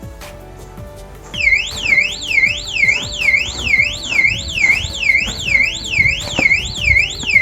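Solar motion-sensor alarm lamp sounding its electronic siren, starting about a second in. It is a loud, high warble that sweeps down and back up about twice a second.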